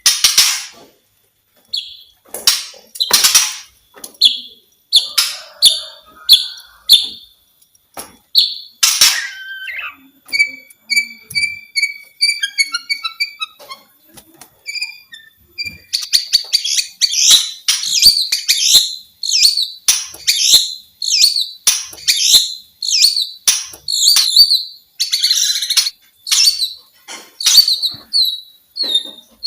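White-rumped shama (murai batu) singing a varied song of loud whistled phrases and quick chipping notes, including a fast run of short notes a third of the way in. From about halfway the song becomes dense and continuous.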